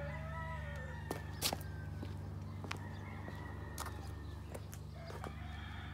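Footsteps and scattered sharp knocks on a plywood floor deck, five or six separate clicks spread over a few seconds, over a steady low hum.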